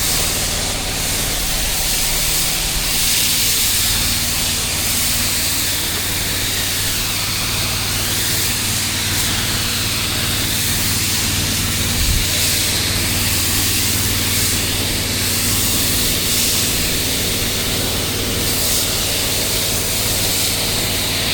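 Pressure washer engine running steadily under the continuous hiss of a soft wash spray, laying down a 1.5% pre-treatment mix on a driveway.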